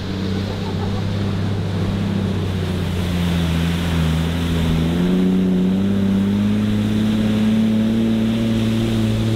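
A four-wheel-drive ute's engine driving through a shallow river crossing, with water sloshing and splashing around it. The engine note dips about three seconds in, then rises steadily as it pulls through.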